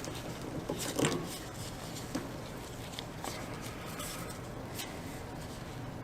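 Parts being handled on a workbench: a few light knocks and clicks, the loudest about a second in, with some rubbing, over a steady background hiss.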